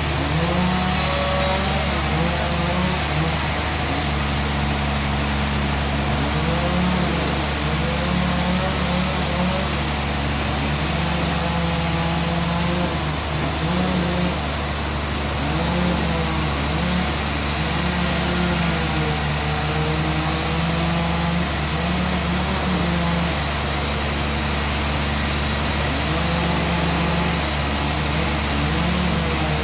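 An engine running steadily, its pitch stepping up and down slightly as it runs.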